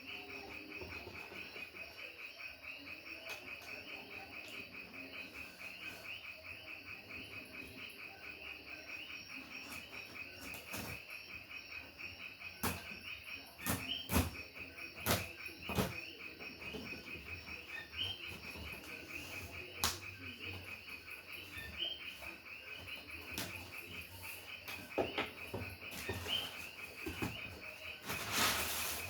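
A steady, fast-pulsing, high-pitched chorus of calling frogs and insects, with a few sharp clicks and knocks scattered through the second half and a short rush of noise near the end.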